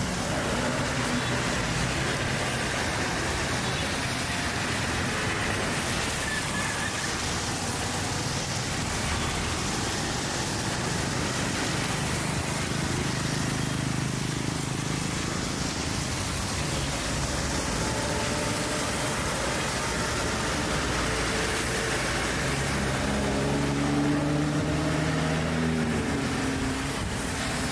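City road traffic: a steady roar of passing vehicles with engine hum. One engine's drone comes up louder about three-quarters of the way through.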